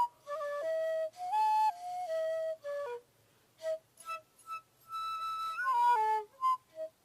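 Bamboo shakuhachi flute playing a slow melody of held notes that step and bend between pitches, with short breaths between phrases. There is a brief pause just before the middle, followed by a few short separate notes and then longer held ones.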